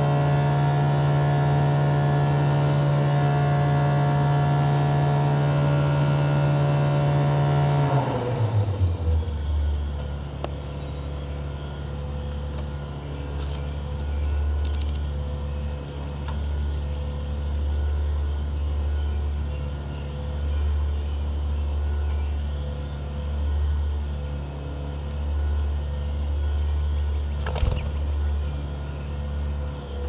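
A motor or engine running steadily with a low hum. About eight seconds in its pitch drops sharply, and it runs on at the lower pitch, rising and falling gently in loudness, with a few faint clicks.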